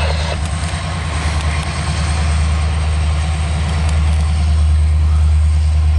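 Norfolk Southern SD60E diesel-electric locomotives, EMD 16-cylinder two-stroke diesels, working hard under a loaded coal train as they pass close by: a deep, steady engine drone over the running noise of the train.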